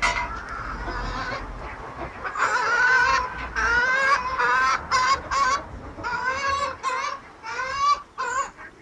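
Silkie chickens calling: several loud calls in quick succession, starting about two and a half seconds in, with a few sharp clicks among them.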